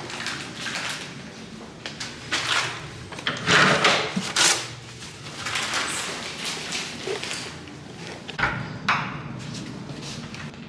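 A series of short rustling rushes and a few knocks and clicks, loudest a few seconds in: handling and door sounds in a small restroom.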